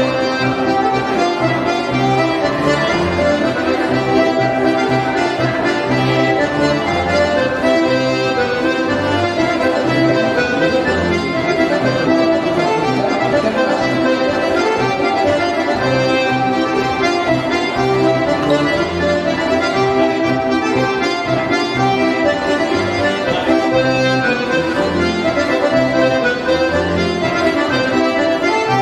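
Polka-march dance music with a steady repeating bass beat under a melody.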